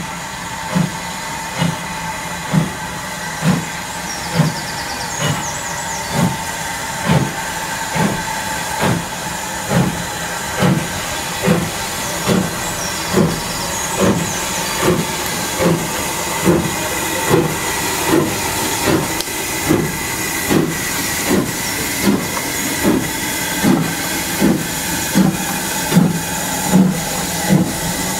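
LMS Ivatt Class 2MT tank engine, a two-cylinder steam locomotive, pulling a train away with slow, even exhaust chuffs just under one a second that quicken slightly, over a steady hiss of steam.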